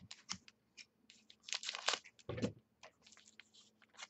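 Trading-card pack wrapper crinkling and crackling in the hands in a run of short, sharp crackles, with one dull knock about two and a half seconds in.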